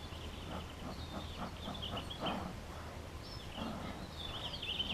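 Small birds chirping and trilling in quick high calls throughout, with a few brief soft rustling sounds underneath.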